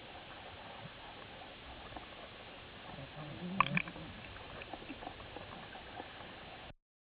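Underwater ambience: a steady low hiss with faint scattered crackling clicks. A little past halfway comes a sharp click and a brief low burble, and the sound cuts off abruptly near the end.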